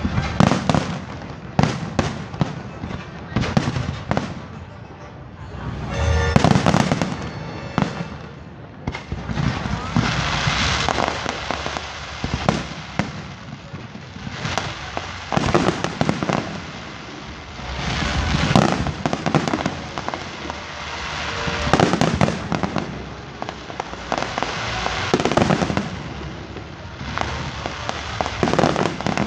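Aerial fireworks display: shells bursting in quick clusters every few seconds, each a sharp bang, with stretches of dense crackling between the volleys.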